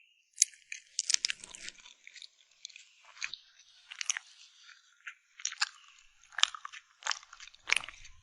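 Close-miked eating of cake: a series of crisp, crackly crunches from biting and chewing, coming irregularly with a few sharper cracks.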